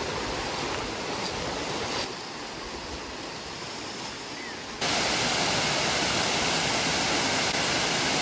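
Steady rush of river water, a little quieter after about two seconds. About five seconds in it jumps to the much louder, steady rush of Nelson Falls cascading over rock.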